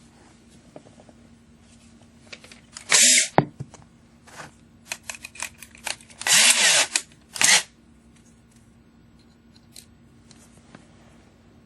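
Cordless drill driving a screw to fasten a metal support clip, run in three short bursts, about 3 s in, from about 6.3 to 7.1 s and again near 7.5 s, with sharp clicks and tool handling in between.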